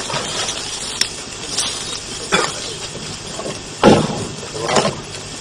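A few scattered knocks and thumps over a steady hiss, the loudest just before four seconds in.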